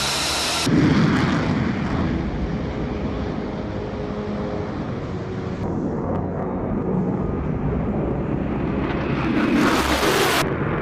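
Military aircraft engine noise: a loud, dense rumble with a hissy upper edge. It starts abruptly just under a second in and cuts off sharply near the end.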